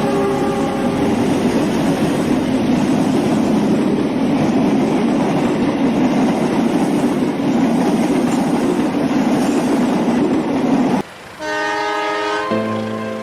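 Train rumbling steadily across a railway bridge, with a horn fading out in the first second. About eleven seconds in the sound cuts off abruptly and music takes over.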